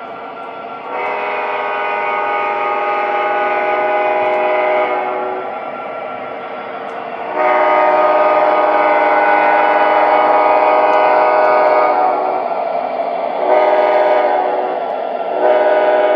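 Sound system of an MTH Union Pacific SD70ACe model diesel locomotive blowing its horn in the grade-crossing pattern: two long blasts, one short, then a long one. A steady running rumble goes on underneath.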